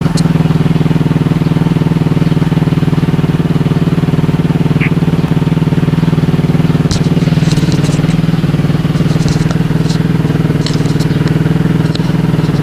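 Suzuki RM-Z250 dirt bike's single-cylinder four-stroke engine idling steadily, with scattered clicks and knocks from handling the camera from about seven seconds in.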